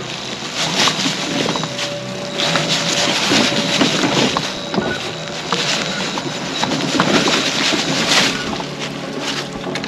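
Mobility scooter's tyres crackling and crunching over a trail thick with pine needles and dry leaves as it drives on, struggling for traction.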